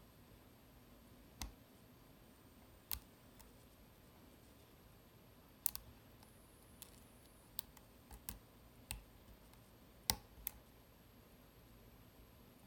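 Light, irregular clicks of lock picks working the spring-less sliders of a Vidmar cabinet slider lock, about a dozen sharp ticks spread unevenly.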